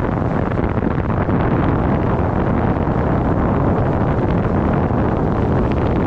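Steady rushing of wind over a microphone during a paraglider flight, loud and unbroken.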